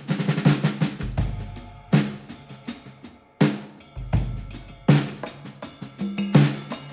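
Background music: a drum-heavy beat with snare hits, kick drum and deep bass notes.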